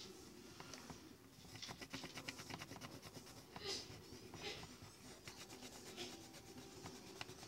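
A marker scribbling on paper while colouring in, with quick rubbing strokes that come thickest about two seconds in and again near six seconds.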